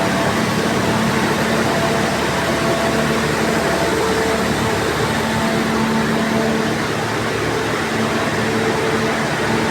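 Heavy machinery in an engine hall running steadily: a loud, unbroken mechanical drone with a steady hum over it.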